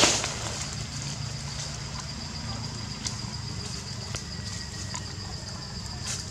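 Outdoor ambience: a steady low rumble under a steady high-pitched drone, with scattered faint clicks and rustles.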